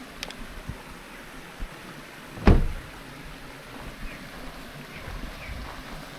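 Steady outdoor noise with a few faint clicks and one loud, short thump about two and a half seconds in.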